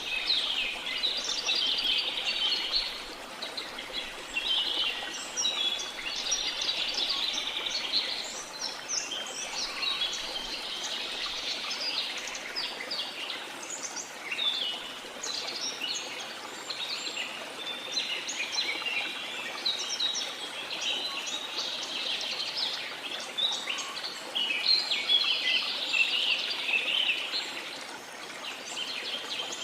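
Many birds chirping and singing at once in a dense chorus of high chirps and trills, over a steady rushing background noise.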